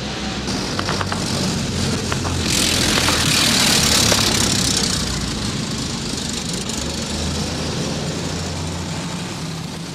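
A motor vehicle's engine running with a low steady hum, and a rush of noise that swells a couple of seconds in, peaks, and fades again.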